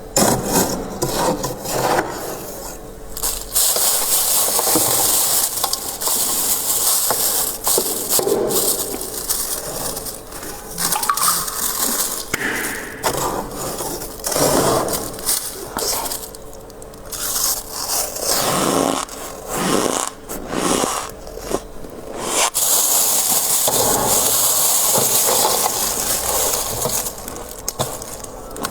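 Frost being scraped off a freezer's inside wall in long, continuous strokes, with a stretch of irregular, crackly crunching of the loosened ice in the middle.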